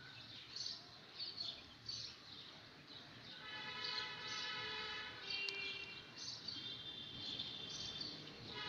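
A long, steady horn-like note starts about three and a half seconds in and holds without changing pitch. Before it there are faint short high chirps.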